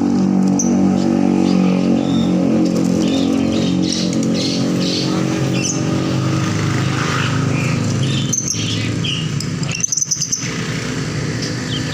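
Songbirds chirping and calling in short high notes over a loud, steady hum of a small engine running.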